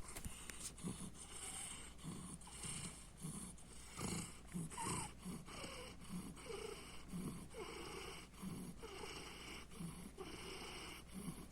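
Domestic cat purring with a raspy purr that sounds like snoring, swelling and fading in regular pulses with each breath.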